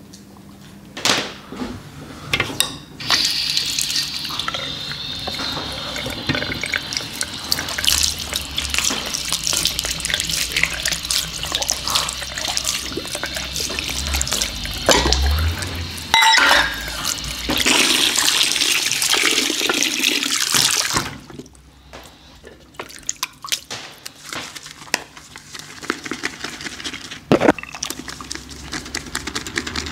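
Water tap running into a ceramic sink, then turned off about two-thirds of the way through. After that come light clicks and splashes as a shaving brush and bowl are handled and rinsed over the sink.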